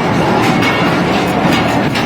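Passenger train running on the rails: a steady rumble with the clatter of carriage wheels.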